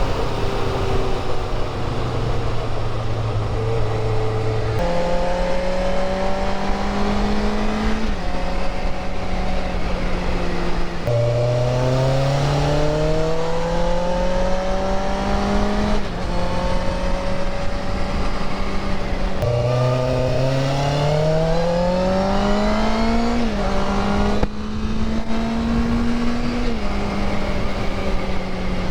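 1988 Honda CBR600F1 Hurricane's inline-four engine under way, climbing in pitch as it pulls and changing pitch sharply at several gear changes, with a steady rush of wind.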